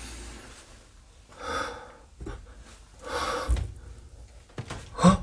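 Two breathy, whisper-like exhalations about a second and a half apart, then a few sharp clicks near the end.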